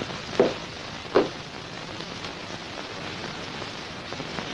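Steady hiss, with two short, sharp sounds about three-quarters of a second apart near the start.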